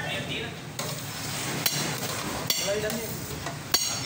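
Lassi being churned with a wooden stick in an aluminium pot: a steady sloshing, stirring wash with a few sharp knocks of the stick against the pot.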